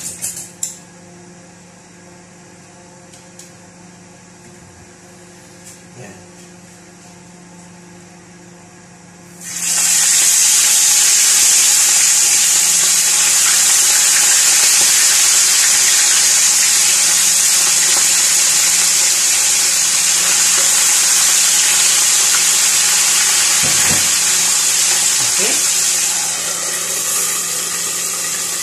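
Salted fish frying in hot oil in a nonstick pan: a loud, steady sizzle sets in suddenly about a third of the way in as the fish go into the oil, and eases slightly near the end. Before it, only a low steady hum and a few faint clicks.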